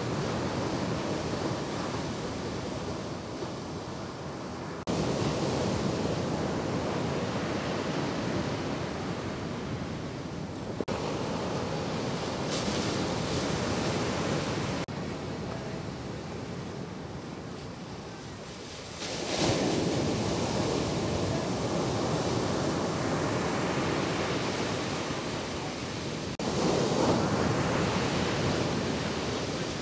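Ocean waves breaking in shorebreak and surf washing in, a steady rushing that swells as waves crash, with the sound jumping abruptly several times where separate clips are cut together.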